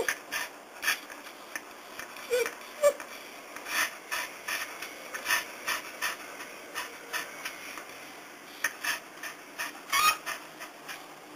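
Dog panting hard and fast, about two breaths a second, the anxious panting of a dog afraid of thunder, with two brief whines about two and a half seconds in.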